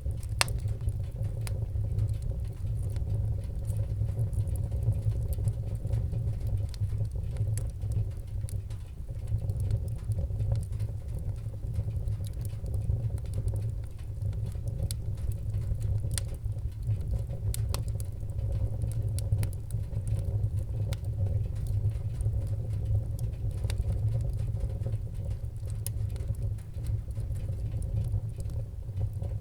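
Fire burning: a steady low rumble of flames with scattered sharp crackles and pops.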